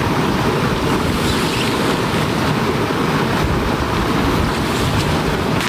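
Steady rushing wind with low rumbling gusts buffeting the microphone.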